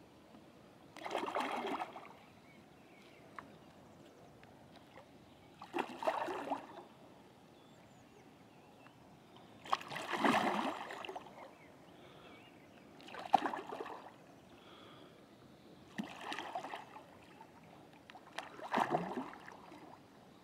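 A hooked common carp of about 19 pounds splashing at the water's surface by the landing net as it is drawn in, in six short splashes a few seconds apart.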